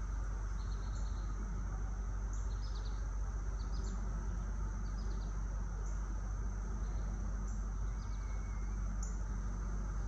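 Steady low rumble of light distant traffic under a continuous high drone of cicadas, with wind in the trees and a few short high bird chirps every second or so.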